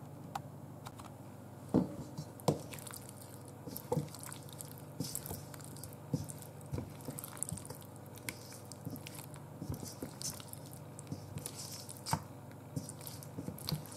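Silicone spatula stirring barbecue-sauced chicken wings in a stainless steel bowl: wet squishing and scraping, with scattered knocks of the spatula and wings against the bowl.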